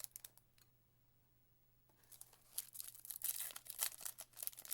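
Foil trading-card pack wrapper being torn open and crinkled, starting about two seconds in after a brief quiet pause.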